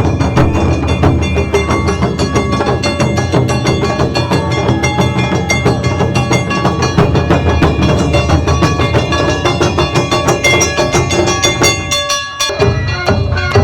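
Loud live Japanese festival music: rapid taiko drumming with sharp, clacking strikes over sustained pitched instruments. It drops briefly about twelve seconds in, then carries on.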